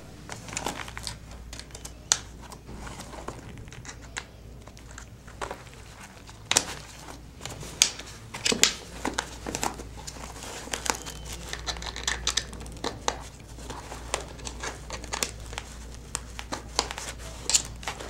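Irregular clicks and rustling as cable connectors are handled and plugged into the I/O ports of a vest-mounted tactical computer, with the vest's nylon fabric rustling under the hands.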